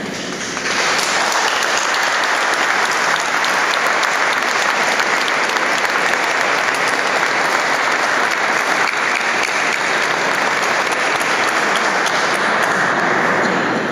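Audience applauding: steady clapping that starts about a second in and dies away near the end.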